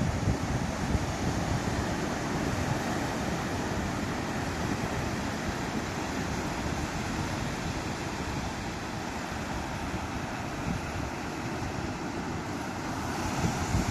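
Sea surf: a steady wash of waves breaking on the shore, with wind buffeting the microphone as a low rumble. The wash swells louder near the end.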